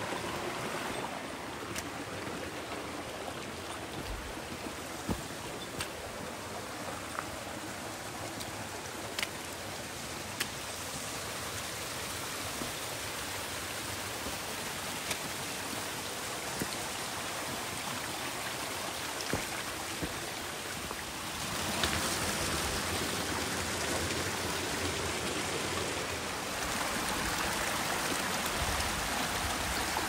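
Mountain stream flowing, a steady rush of water that grows louder about two-thirds of the way in. A few faint sharp clicks are scattered through it.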